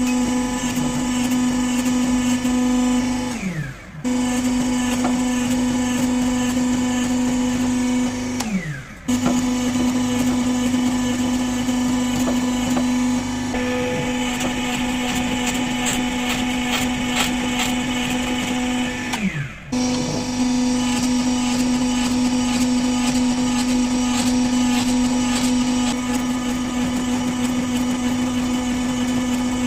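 Hydraulic forging press running with a steady motor-and-pump hum while a hot wootz steel ingot is pressed out between round dies. About 4, 9 and 20 seconds in, the hum drops away briefly with a falling tone and then comes back.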